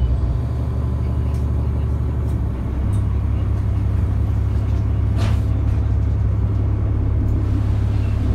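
Cummins ISL diesel engine of a 2004 New Flyer D40LF transit bus, heard from inside the cabin while the bus is under way, with a steady low drone. Its low note steps up about three seconds in, and there is a brief swish about five seconds in.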